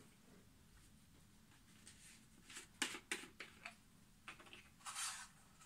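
Faint workshop handling sounds as a leather-soled boot and a plastic bottle of sole oil are handled: a few light clicks and taps past the middle and a brief hiss near the end.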